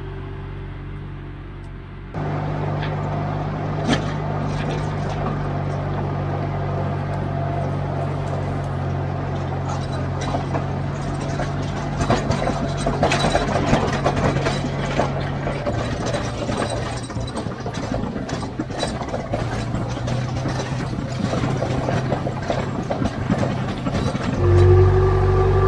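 Engine of a heavy earthmoving machine running steadily under work, with scattered knocks and clanks; the engine sound steps up suddenly about two seconds in.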